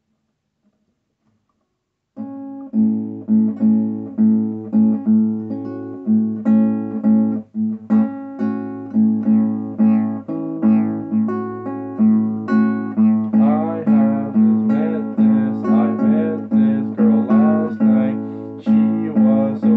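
Classical guitar playing a bossa nova–style song in A major with a steady, repeating rhythm, starting about two seconds in after a brief silence.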